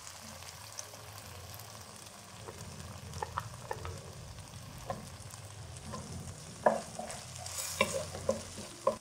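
Chicken strips sizzling gently in oil in a nonstick pan, with a wooden spatula knocking and scraping against the pan as it stirs. The knocks come more often in the second half.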